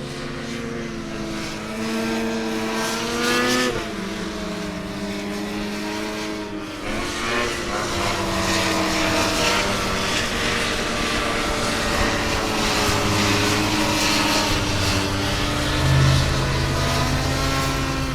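Snowmobile engine running under way, its pitch rising and then dropping about four seconds in, dipping again near seven seconds, then holding fairly steady.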